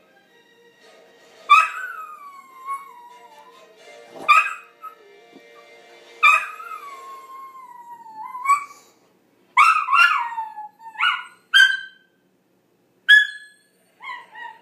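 American Eskimo dog howling: three long howls that fall in pitch, then a quick run of short yelps and whines near the end. Faint fanfare music plays underneath.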